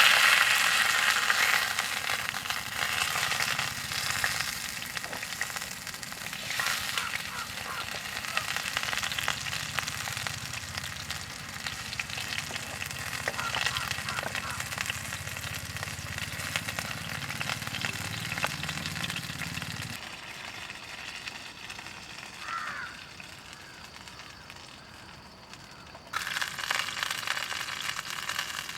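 Food sizzling and crackling in a pan over a camp stove, with the stove's low hum beneath until about twenty seconds in. A crow caws a couple of times near the end.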